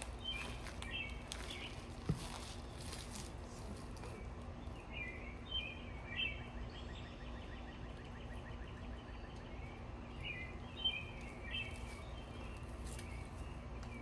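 Small birds chirping in three short clusters of quick repeated chirps, over a steady low hum of background noise, with a single sharp knock about two seconds in.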